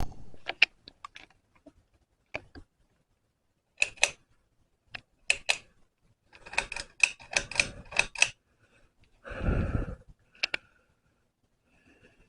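Irregular sharp clicks: some in quick pairs, a dense flurry about six to eight seconds in, then a short rustling thump near ten seconds.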